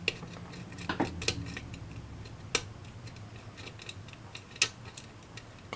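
Lock pick working the pin stack of a six-pin lock cylinder under tension: about five small, sharp metallic clicks spaced unevenly, the sounds of pins being lifted and setting at the shear line, with one pin giving counter-rotation, typical of a spool security pin.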